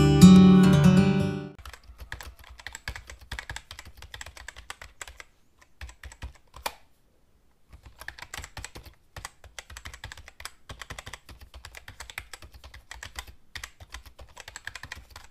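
Acoustic guitar music fading out about a second and a half in, then rapid typing on a membrane computer keyboard: fast, dense key clicks with a short pause around the middle.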